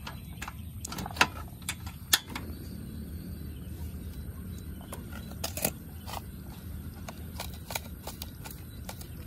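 Scattered sharp clicks and taps from cooking gear being handled at a pot on a portable butane stove, over a steady low hum; two louder knocks come about one and two seconds in.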